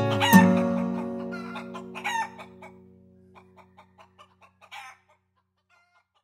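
Final chord on a nylon-string classical guitar ringing out and fading, with chickens clucking and squawking over it; everything stops about five seconds in.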